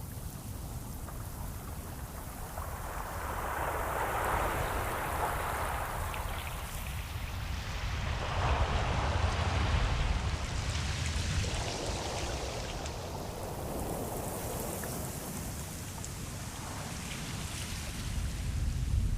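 Ocean waves washing in, a steady low rumble of surf with swells of hissing spray that rise and fall every few seconds.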